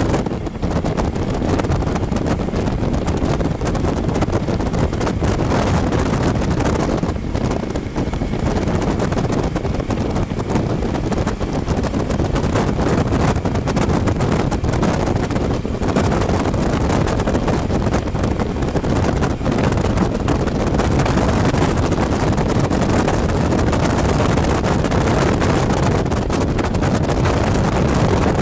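Steady wind rush buffeting the microphone on a Suzuki V-Strom motorcycle cruising at road speed, with the bike's engine and road noise blended underneath.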